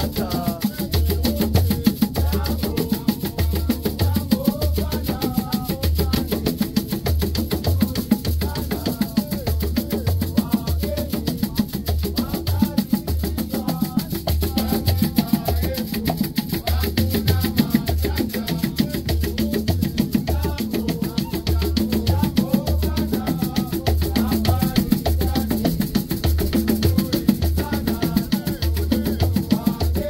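Music with a steady beat: drums and percussion over a repeating bass line.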